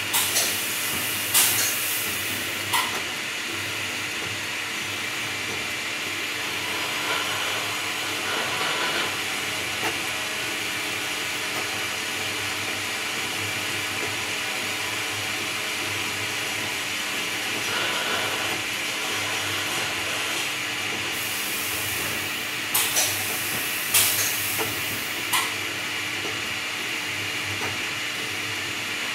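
Milling machine spindle running while a small engraving cutter cuts lettering into a black-coated metal plate: a steady hiss with a faint hum. Several brief, sharper bursts come near the start and again near the end.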